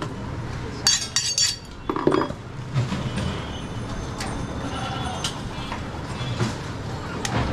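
Butcher's knife clinking and scraping against a wooden chopping block, with a short metallic ring about a second in and a few scattered knocks.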